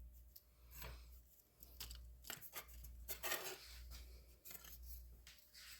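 Faint clicks, rubs and scrapes of small parts being handled, busiest around the middle, over a low steady hum.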